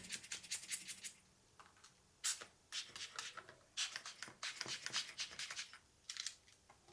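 Faint, irregular scratchy rubbing and rustling: many short strokes coming in clusters, with a brief lull in the second second.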